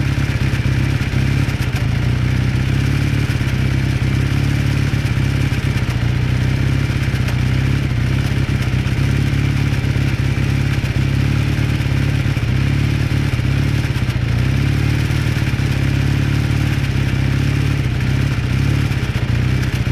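1981 Kawasaki KZ440 parallel-twin engine idling steadily as it warms up, with a knocking noise in its running.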